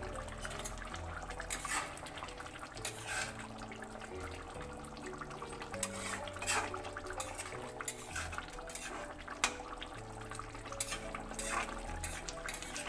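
Soft background music with a slow melody, over a thin fish curry bubbling as it simmers in a metal pan, with scattered small pops and clicks.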